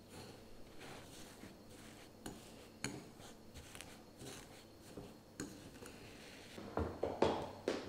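A metal fork scraping and clinking against a glass bowl as it mashes butter into sugar and cinnamon. A cluster of louder knocks comes near the end.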